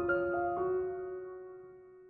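Background piano music: a few notes near the start, then a low note that rings on and slowly fades.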